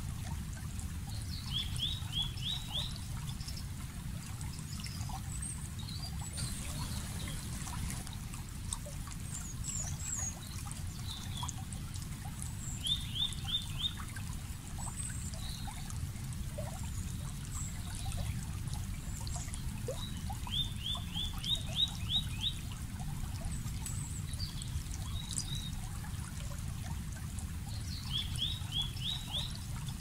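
Water trickling and rushing steadily, with birds singing over it. One bird repeats a short, fast run of rising notes four times, and other birds add scattered high chirps.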